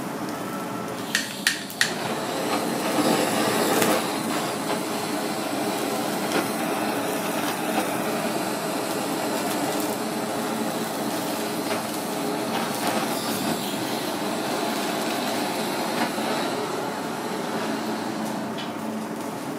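A few sharp clicks about a second in, then the steady hiss of a handheld blowtorch flame searing grilled fish.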